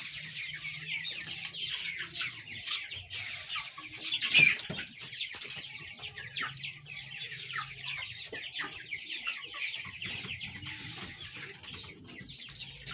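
A flock of chickens calling throughout: many short, high, overlapping chirps and clucks in a dense continuous chorus, with one louder call about four seconds in.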